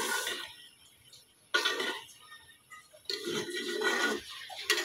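Metal spoon scraping and knocking against a metal cooking pot as a pot of khichuri is turned over, in several separate strokes: a sharp one at the start and others about a second and a half in and around three seconds in.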